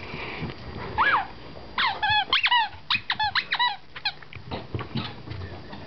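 Bichon frisé whining in a run of short, high-pitched squeaks, each rising and falling in pitch: one about a second in, then about ten in quick succession. It is a dog pressing its owner to come and play fetch.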